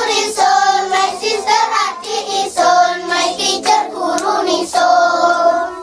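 A group of children singing together, with a few hand claps.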